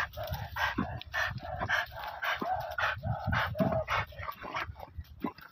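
A dog making quick, short excited barks at a snake burrow it has found, about three a second.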